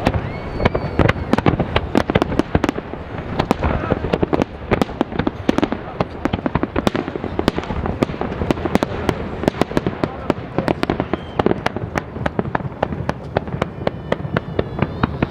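Large fireworks display: a dense, continuous barrage of bangs and crackling explosions, several every second.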